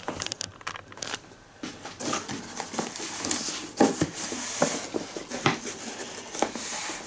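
Cardboard shipping box being handled and its flaps folded open: rustling and scraping of cardboard, with several light knocks.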